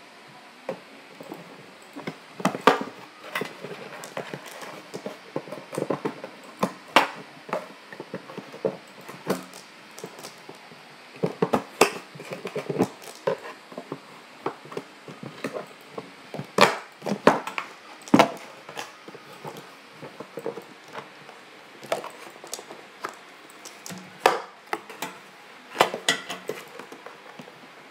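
Toy packaging being handled and worked at: irregular clicks, taps and knocks of plastic and cardboard with soft rustling between them, with a few sharper knocks around the middle.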